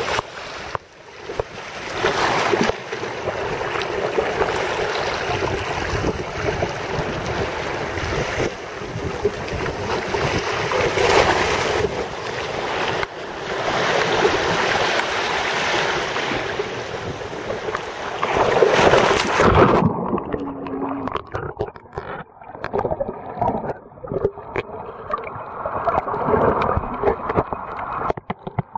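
Sea washing against a rocky shore, with wind rushing on the microphone, swelling and easing. About twenty seconds in, the camera goes underwater and the sound turns suddenly muffled, leaving only dull, irregular water noise.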